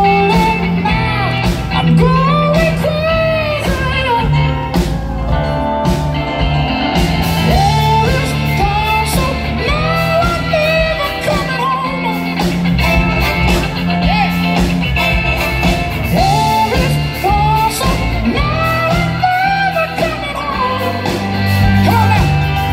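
Live soul band playing over amplification: electric guitar, bass, drums and a horn section with trumpet and saxophone, with a bending lead melody line over a steady beat.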